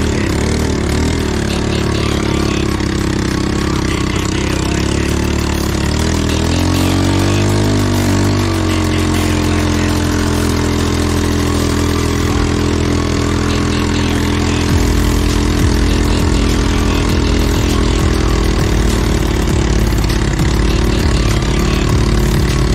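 ATV engine idling, revved up and back down once about six to eight seconds in, then idling steadily again.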